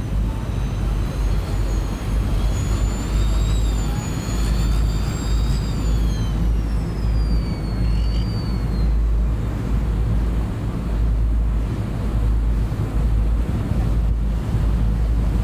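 Chao Phraya express boat's engine running with a steady low rumble under water and wind noise. A high whine rises and falls over roughly the first nine seconds, then fades out.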